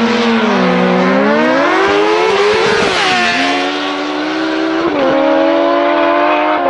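Two sport motorcycles launching off a drag-strip start line at full throttle. The engines climb steadily in pitch, and the pitch drops sharply at each upshift, about three seconds in and again about five seconds in.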